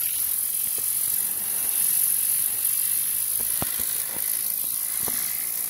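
Compressed air hissing steadily from an air compressor's nozzle, with a few light clicks about three and a half and five seconds in.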